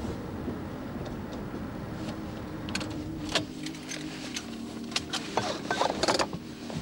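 Car interior while the car rolls slowly: a steady low engine and road rumble, with the windscreen wiper sweeping. From about halfway through comes a run of sharp, irregular clicks and knocks.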